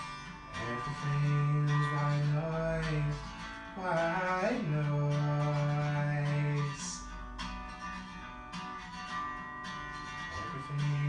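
A song with acoustic guitar, a voice holding long wordless notes with a slide between pitches about four seconds in.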